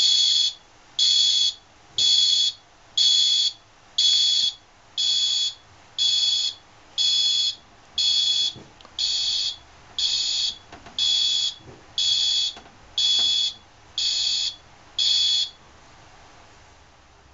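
Fire alarm sounder giving the evacuation signal after a manual call point has been triggered: a high-pitched beep about half a second long repeating once a second, stopping about fifteen seconds in.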